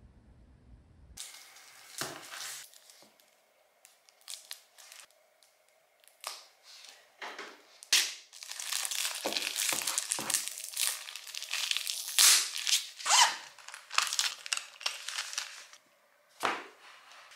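Plastic wrapping on a multipack of Post-it notes being crinkled and torn open by hand. It starts as scattered crackles about a second in and becomes continuous crinkling with a few sharp crackles about halfway through.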